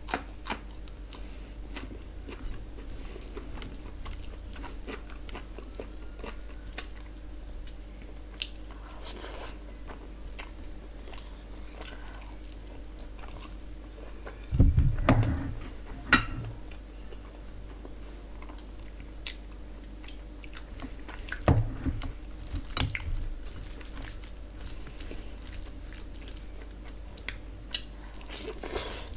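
Close-miked eating sounds of a person eating rice and curry by hand: moist chewing and small mouth clicks, with the squelch of fingers working rice into gravy. Two louder stretches of chewing and handling come about halfway through and again a few seconds later.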